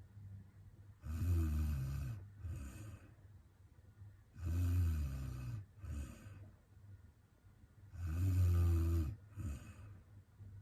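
A young woman snoring in her sleep, three loud snores about three and a half seconds apart, each followed by a shorter, softer one.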